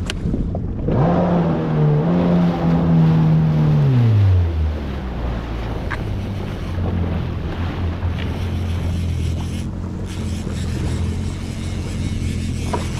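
Yamaha FX HO WaveRunner jet ski engine revving up about a second in and holding for about three seconds. It then drops back to a steady low idle.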